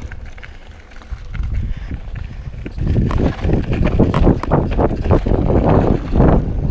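Scott Voltage 720 mountain bike clattering over a rocky dirt trail at speed, with wind buffeting the microphone. The rattle of tyres, chain and frame on the rough ground is quieter for about the first second, then grows louder and denser from about three seconds in.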